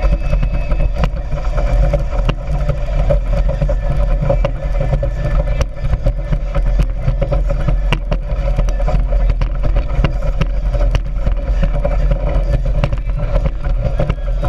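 Speedboat engine running steadily at speed, with heavy wind rumble on the microphone and many short knocks.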